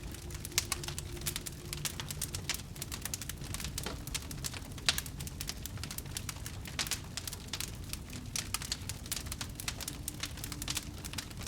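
Fire crackling: a dense, uneven run of sharp pops and snaps over a low rumble, with one louder pop about five seconds in.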